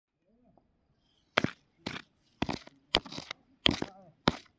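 A stone being struck hard, over and over: six sharp cracks about two a second, starting about a second and a half in.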